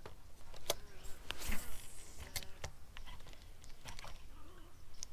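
Fishing rod and reel handled during a cast and retrieve: scattered sharp clicks and ticks, with a brief swish about a second and a half in.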